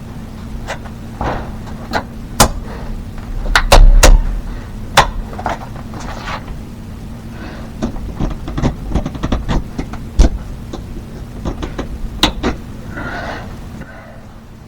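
Irregular clicks and knocks of hand work, with a louder cluster about four seconds in, over a steady low hum.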